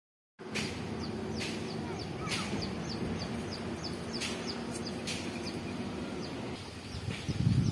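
Birds chirping and calling repeatedly: sharp high calls about once a second and quicker short chirps, over a steady low rural background. Louder low thumps come near the end.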